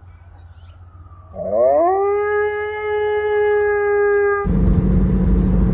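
A dog howling: one long howl that rises in pitch and then holds steady for about three seconds. Near the end it cuts off abruptly and a louder steady noise with a low hum takes over.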